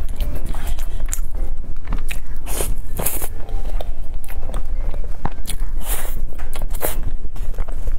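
Close-miked mouth sounds of chewing a soft, cream-layered dessert: many short, irregular clicks of the mouth.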